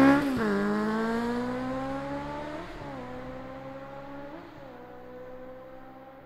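Motorcycle engine revving hard, then dropping in pitch and pulling away: the pitch climbs slowly and dips twice more as the rider shifts up, and the sound fades steadily.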